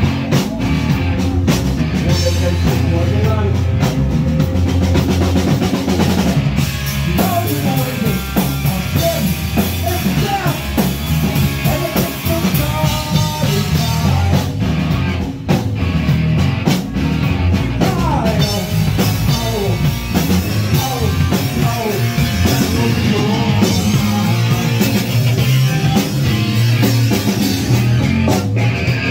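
Live punk rock band playing loudly, with drum kit and electric guitars.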